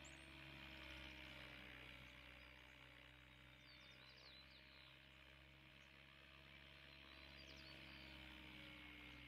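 Faint, distant hum of an RC helicopter in flight, its pitch drifting slightly as it pirouettes.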